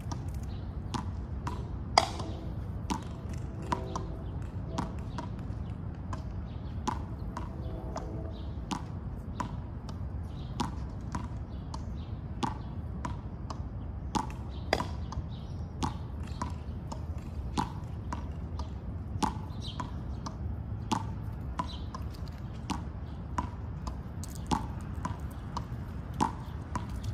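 Irregular sharp clicks or taps, about one or two a second, over a low steady rumble.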